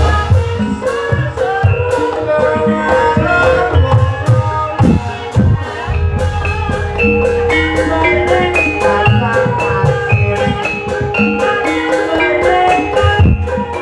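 Gamelan music accompanying an ebeg horse dance, played loud through loudspeakers: a busy, interlocking melody of mallet-struck pitched percussion over irregular hand-drum strokes.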